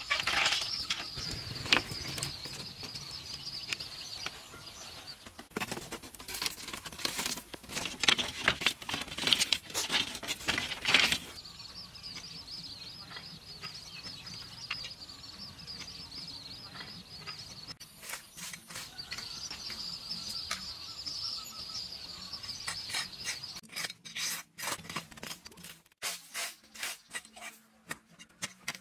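Hand work with bamboo poles and a hoe: sharp knocks and clatter about a third of the way in, then a quick run of hoe strikes into dry soil near the end. A steady high-pitched buzz fills the quieter stretches.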